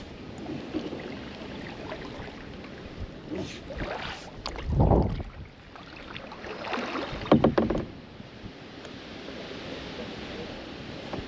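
Kayak paddle strokes splashing in river water, two bursts of strokes a few seconds apart, over a steady hiss of wind and water. A loud low rumble of wind buffeting the GoPro's microphone about five seconds in.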